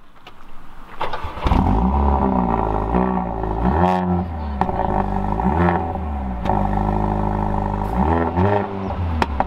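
Mercedes-AMG CLA 45's turbocharged four-cylinder engine starting about a second in, then idling and being blipped about four times, each rev rising and falling back, with a few sharp pops from the exhaust.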